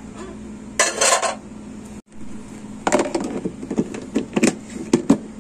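Plastic food-storage tub handled with a short scrape as its lid goes on. Then a run of sharp plastic clicks as the clip-lock lid's latches are snapped shut to seal it.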